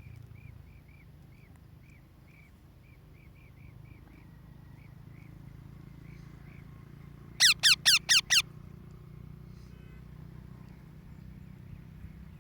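Parrot giving a string of soft, short chirps, then five loud, sharp screeches in quick succession about seven seconds in, each falling in pitch.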